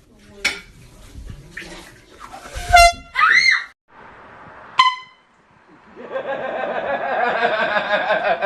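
Air horn blasts: a short, loud toot just under three seconds in and another brief toot about five seconds in. A long blast starts about six seconds in, lasts nearly three seconds and cuts off suddenly.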